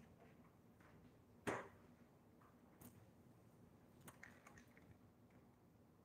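Near silence: room tone with a few faint clicks and one sharper tap about a second and a half in.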